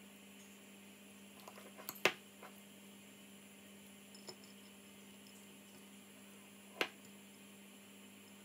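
Metal spoon spreading a creamy filling on toast held over a ceramic plate: soft scrapes and a few sharp clicks of spoon and bread against the plate. The clicks come in a cluster about two seconds in, the loudest of them, then a single one near four seconds and another sharp one near seven, over a steady low hum.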